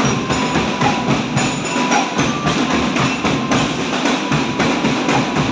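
Marching drum band practising: a group of drums played together in a fast, steady rhythm of many rapid strokes, loud throughout.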